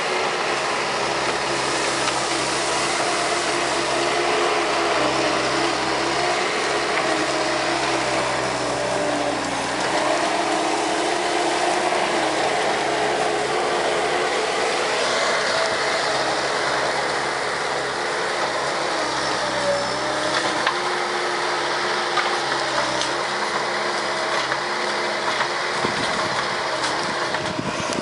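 Bobcat S185 skid steer's diesel engine running hard at working throttle, its pitch dipping and rising as it takes load, with mechanical clatter and sharp knocks from the Brushshark shear working through brush, more of them in the second half.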